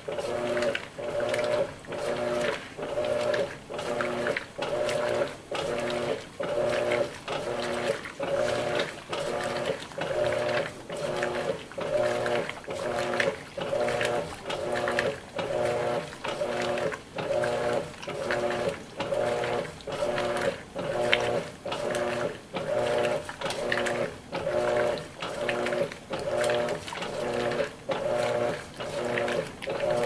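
Electrolux LWI13 top-loading washing machine agitating a load of towels in water: the drive motor hums in short, even pulses, about one and a half a second, as it drives the washer back and forth.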